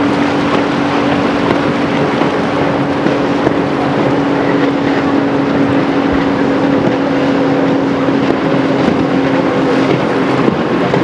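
Rigid inflatable speedboat running at speed, its engine a steady drone that fades about ten seconds in, over a constant rushing noise.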